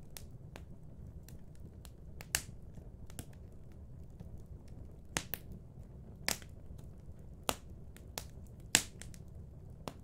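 Fireplace fire crackling: irregular sharp pops and snaps, about a dozen, over a low steady rumble, with one of the loudest pops near the end.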